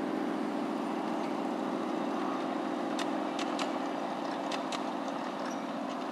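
5-inch gauge miniature railway locomotives running on the track: a steady mechanical running sound, with a few sharp clicks about halfway through as a second locomotive passes close by.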